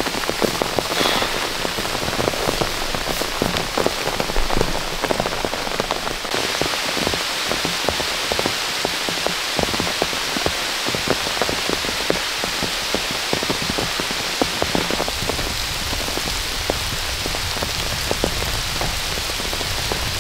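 Heavy rain, with many single drops striking close to the microphone as sharp clicks over a steady hiss.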